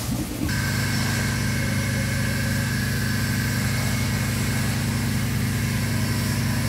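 Screeding-site machinery running at a constant speed: an even, engine-like drone with a thin high whine on top. It cuts in abruptly about half a second in, after a moment of irregular scraping noise.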